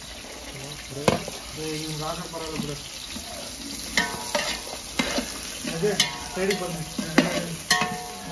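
Food sizzling in a cooking pot while a metal ladle stirs it, with several sharp clanks of the ladle against the pot's side that ring briefly.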